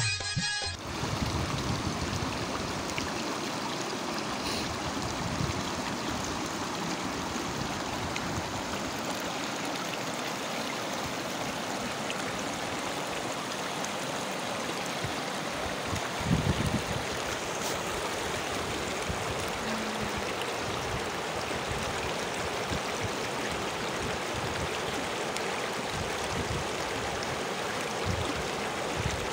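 Shallow mountain river running fast over boulders and cobbles: a steady rush and babble of water. A brief low thump about halfway through.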